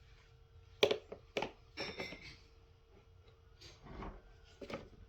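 Plastic vacuum cleaner parts knocking and clicking together as they are fitted and twisted into place: two sharp clacks about a second in, then scraping and several lighter knocks.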